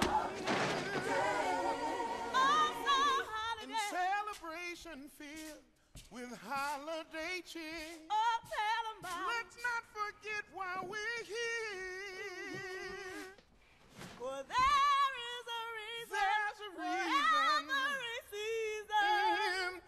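Gospel singing with heavy vibrato, the voices breaking off briefly about six seconds in and again just before fourteen seconds.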